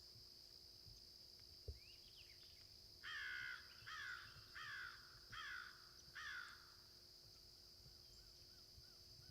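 A crow cawing five times in quick succession, each caw dropping in pitch, over a steady high insect-like hum.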